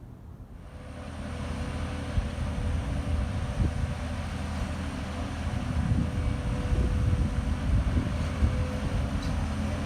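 A heavy vehicle runs close by: a low engine rumble with a steady hum, swelling up about a second in and then holding steady.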